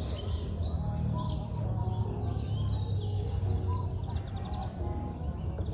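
Many small birds chirping from the shoreline trees, a dense run of short, quick calls that sweep downward, over a steady low rumble of wind on the microphone.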